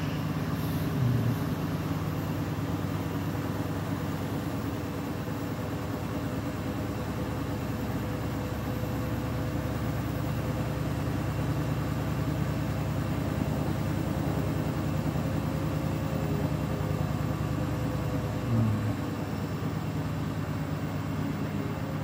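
Beko WTK104121W front-loading washing machine on its spin cycle, the drum spinning at speed with a steady motor whine over a low hum. Two brief low bumps are heard, about a second in and again near the end.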